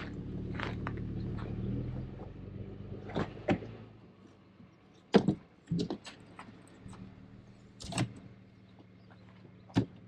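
Folding camp table being unfolded and set up: a series of sharp knocks and clicks as its metal legs swing out and lock into place. Under the first few seconds there is a low steady hum that fades away.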